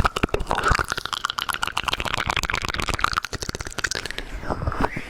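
Close-miked wet mouth sounds: a rapid, irregular stream of tongue and lip clicks and smacks.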